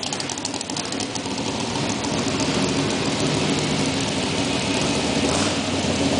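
Engines of vintage race cars rumbling as several cars drive past one after another on a dirt track. The sound grows louder in the second half as a car passes close by.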